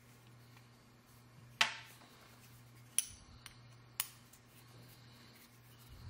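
Steel Allen wrench clinking against the metal parts of a knife sharpener during assembly: three sharp metallic clicks about a second apart, the first and loudest with a short ring.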